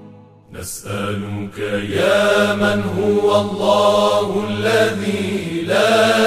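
Slowed, reverb-heavy devotional vocal chanting over a steady low drone. It dips briefly at the start, a swish follows, and the sung phrases come in about two seconds in.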